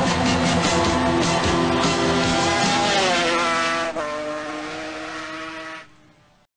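Music over a motorcycle at racing speed, its engine pitch falling as it goes by. About four seconds in the sound changes abruptly, then fades out near the end.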